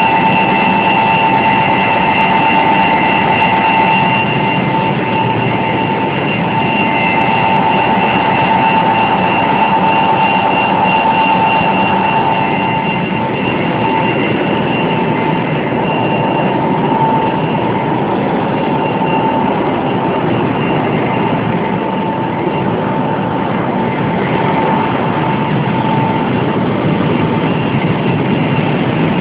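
Cooling tower running: a loud, steady rush of water falling through the tower, with a steady high whine from its machinery on top.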